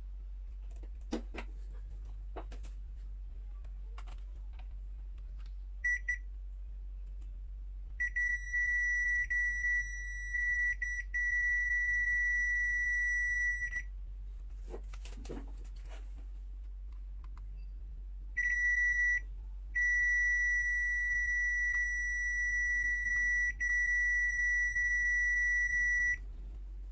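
ANENG AN860B+ multimeter's continuity buzzer giving a steady high beep while its probes touch a low-resistance point on the laptop motherboard, reading about 2.5 ohms. It beeps once briefly, then sounds in two long stretches broken by short gaps, with a few light taps of the probes between beeps.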